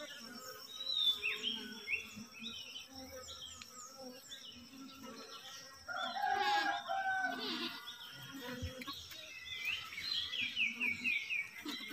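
Small birds chirping in quick, short repeated notes over the hum of Asian honeybees on an open hive comb, with a louder call about six seconds in.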